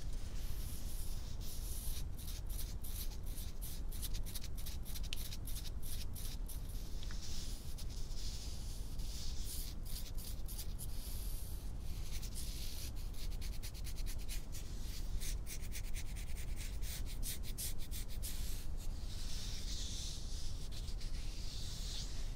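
Hands and long fingernails scratching and rubbing close to the microphone: runs of quick, crisp scratching strokes, with a softer swishing rub near the end.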